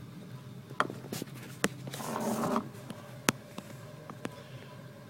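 Handling of a plastic-wrapped cardboard shipping box as it is lifted and shifted: three sharp taps and knocks, a few lighter ticks, and a brief rustle about two seconds in.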